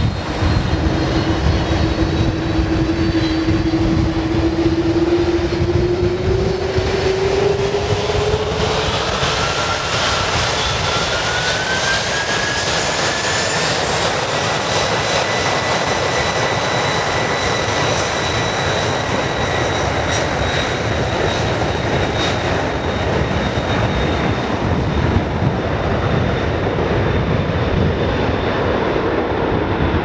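McDonnell Douglas MD-11 freighter's three jet engines spooling up to takeoff power on the takeoff roll: a loud, steady roar with a whine that rises in pitch over the first dozen seconds and then holds level.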